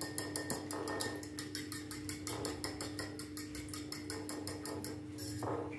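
Fork beating eggs and cooking cream in a bowl: quick, even clicks against the bowl at about six or seven a second, over a steady low hum.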